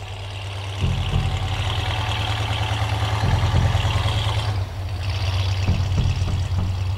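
A pickup truck's engine running as it drives through snow, with a steady low drone and a hiss that fades about four and a half seconds in.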